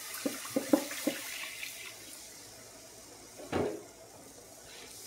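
Milk poured from a plastic jug in a steady stream into a cast iron skillet of flour and pan drippings for gravy. A few light clicks of the wire whisk against the pan come in the first second, and a single knock about three and a half seconds in.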